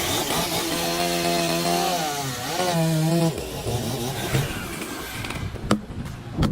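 Chainsaw engine running at high revs, its pitch wavering and rising around two seconds in, then breaking into rougher noise. Two sharp knocks near the end.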